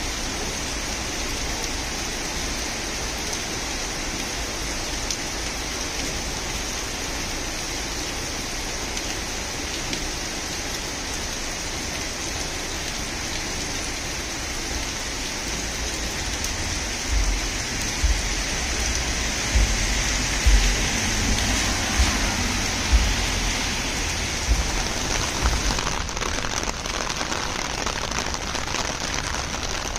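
Steady rain falling on pavement and trees, an even hiss, with a run of short low rumbling thumps about halfway through.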